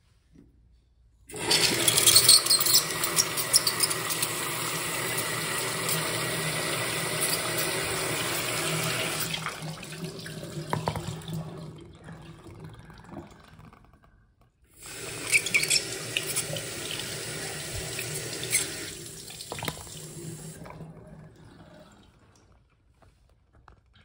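Miniature Saxonette toilet flushed twice by a hose from the mains tap. Each time the water rushes hard through the small bowl and splashes, then fades to a trickle as it drains. The first flush lasts about eight seconds, the second about five.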